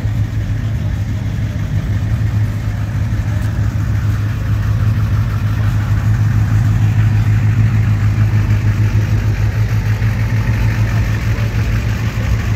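Car engine idling steadily with a constant low hum, a little louder in the middle.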